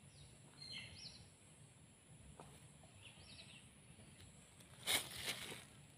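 Quiet garden ambience: small birds giving a few short chirps, a steady high insect drone, and a brief rustle about five seconds in.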